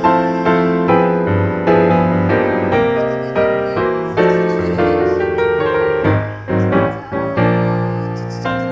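Background piano music, a steady run of notes and chords, each struck and dying away.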